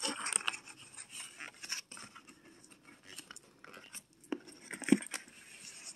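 Toy packaging being handled and unwrapped: scattered rustles and clicks of plastic wrapping and cardboard, with a sharper knock about five seconds in.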